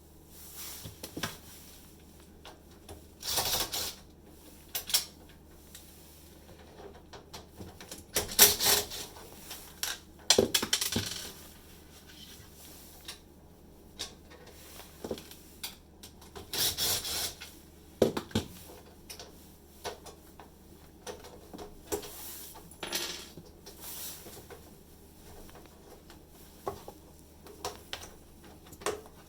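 Irregular clinks, clicks and rattles of small metal and plastic parts and hand tools being handled during dishwasher repair work. Several longer rattling, scraping bursts come about a third of the way in and again past the middle.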